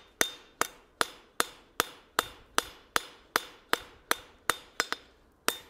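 Hand hammer striking hot steel tong reins on an anvil, knocking the corners off the square stock to make it octagonal. The blows come in a steady rhythm, nearly three a second, each with a short metallic ring, and pause briefly about five seconds in before resuming.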